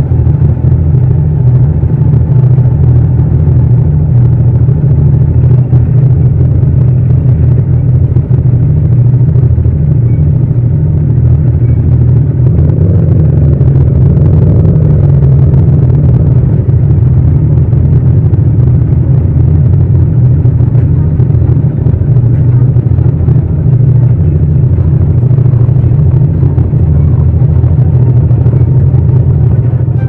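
Yamaha MT-07's 689 cc parallel-twin engine running steadily at low speed, a loud, low rumble heard from the rider's seat.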